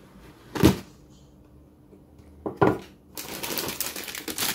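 Cardboard model-kit box being opened: two dull knocks of the box and lid being handled, then, from about three seconds in, steady crinkling of the plastic bags that hold the kit's runners.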